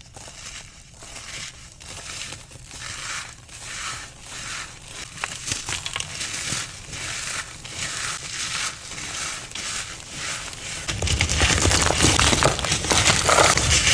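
Crunching of a dry, crumbly powder, in even crunches a little more than once a second. About eleven seconds in it turns into louder, denser crunching.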